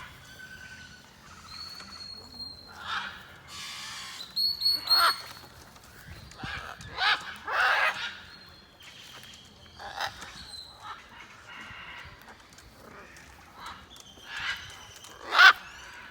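Assorted bird chirps and short whistled calls mixed with other animal cries, coming as separate calls. The loudest cries come about five seconds in, around seven to eight seconds, and just past fifteen seconds.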